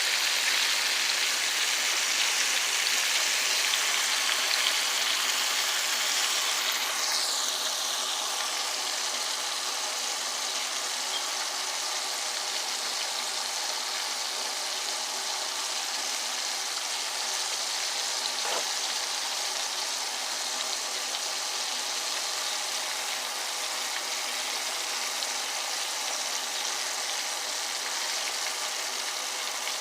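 Flour-coated ribs frying in hot oil: a steady sizzle, a little louder for the first several seconds.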